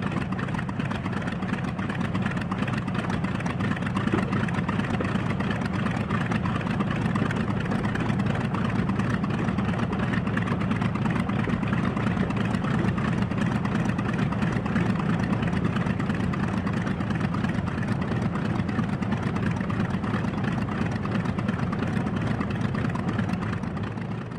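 Airplane engine running at a rough idle, a steady low mechanical drone with no change in pitch.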